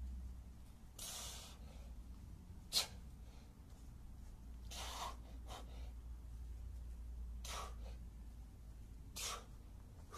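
A man's sharp, hissing exhalations, about six in ten seconds, one sharper and louder a few seconds in: forceful breathing under the effort of kettlebell cleans and goblet squats. A low steady rumble runs underneath.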